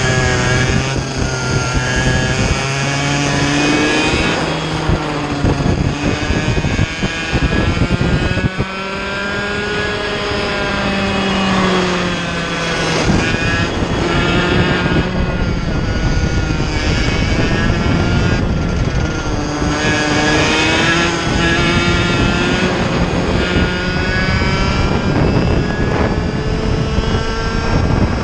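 Vortex Mini Rok 60cc two-stroke kart engine at racing speed, heard onboard. It revs up and drops off again and again as the kart goes through corners and down straights, so its pitch climbs and falls several times.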